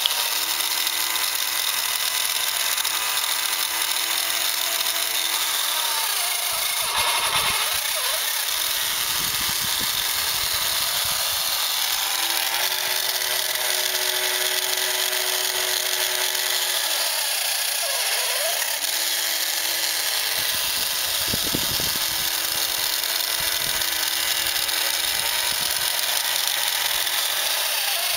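Vintage battery-operated drinking cat toy's small electric motor and gears whirring steadily as the mechanism works. The hum steps up or down in pitch every few seconds, with a few short clicks in between.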